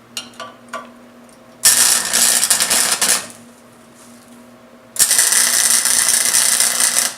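Electric welding arc crackling in two bursts, the first about a second and a half long and the second about two seconds, as a hanger is welded onto a steel exhaust pipe. A few light clicks come before the first burst.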